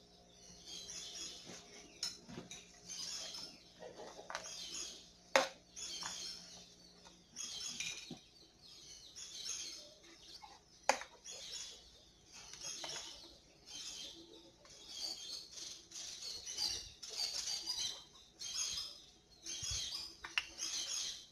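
Knife scraping and cutting through hard peanut-and-rapadura candy in a metal baking tray, about one scrape a second, with two sharp clinks of the knife against the tray or plate.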